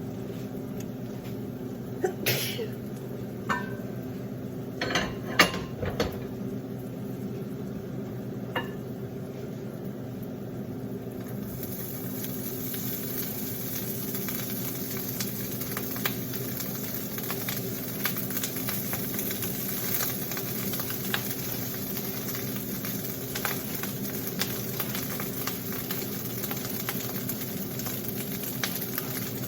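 Cooking at the stove: a few clinks and knocks of utensils against a pan in the first six seconds, then from about twelve seconds in a steady sizzle of rice and spices frying in the pan, over a steady low hum.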